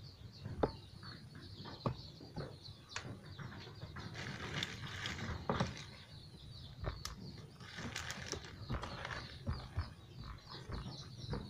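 Small glass vaccine vials being handled and set down on a tiled table: scattered light clicks and knocks at irregular intervals. Chickens cluck and chirp faintly in the background.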